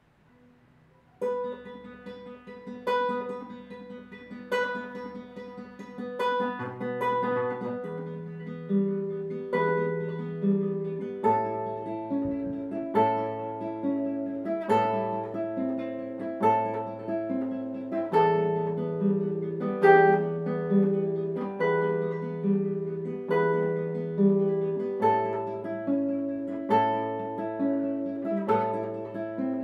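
Solo classical guitar playing a piece: plucked melody notes over a moving bass line, with a strong accent every second or two. The playing starts about a second in, after a moment of near silence.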